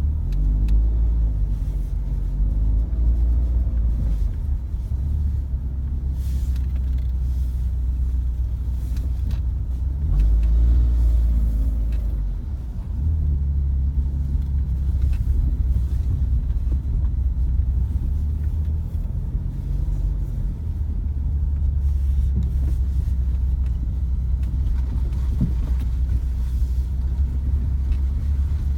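A car driving on the road, with a steady low road-and-engine rumble and a few short knocks. These are the suspension knock that the owner puts down to the Asomi and SS20 Gold suspension parts.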